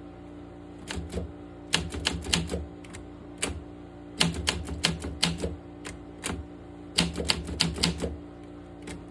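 Olympia SM7 manual typewriter being typed on: runs of sharp key strikes, several a second, separated by short pauses.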